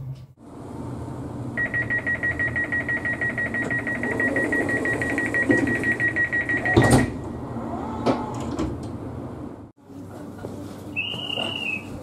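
Dutch train door-closing warning: a high, rapidly pulsing beep for about five seconds, cut off by the loud knock of the doors shutting, followed by lighter clicks. Near the end, a short high tone from another train's door signal.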